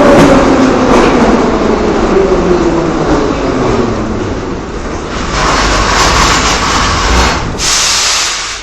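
Metro train in motion, rumbling, with a motor whine that falls steadily in pitch over the first few seconds. The noise swells again later, with a loud hiss near the end before the sound cuts off abruptly.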